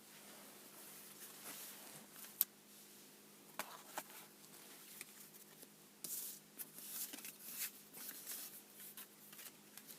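Faint rustling, sliding and light clicks of Yu-Gi-Oh trading cards being handled and flipped through, with one sharper click about two and a half seconds in and a busier patch of handling a little past halfway.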